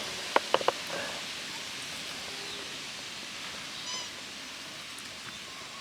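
Quiet background hiss with three quick clicks under a second in, then one short high-pitched animal cry about four seconds in.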